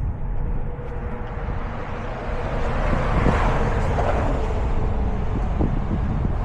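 Vehicle and road noise with wind on the microphone; a broad swell rises and fades about three to four seconds in, like a vehicle passing.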